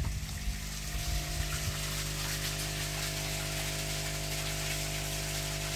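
Steady electric hum of a pond pump running, with a hiss of moving water over it. A few low bumps sound in the first couple of seconds.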